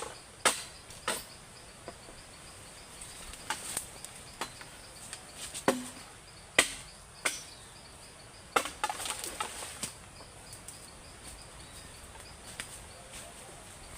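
A series of irregular sharp knocks, like wood being struck, over a steady high insect trill; the knocks come every second or so, cluster around the nine-second mark, then stop, leaving only the insects.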